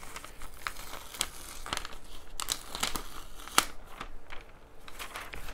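White paper wrapping being peeled and folded back off a cardboard box, crinkling and crackling with scattered sharp clicks and one louder click about three and a half seconds in.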